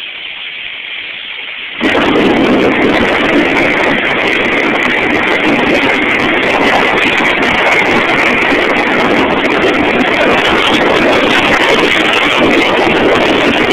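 Loud, steady rush of wind and tyre noise from a Jeep Cherokee on the move, jumping up suddenly about two seconds in.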